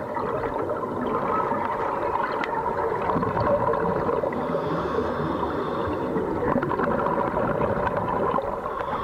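Underwater gurgling and bubbling of air escaping from the swimmers' breathing air hoses, over a steady low hum.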